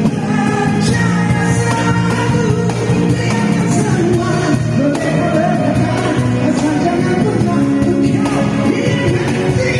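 Live band playing an acoustic arrangement, with a singer's voice carried over it throughout.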